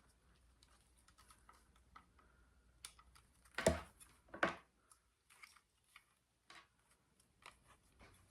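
Handling noise from a camera-mounted microphone being turned over in the hands: scattered small clicks and taps, with two louder knocks about three and a half and four and a half seconds in.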